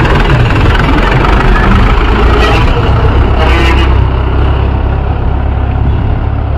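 Mahindra 415 DI tractor's four-cylinder diesel engine running steadily under load as it pulls a spring-tine cultivator through the soil, easing off a little near the end as the tractor moves away.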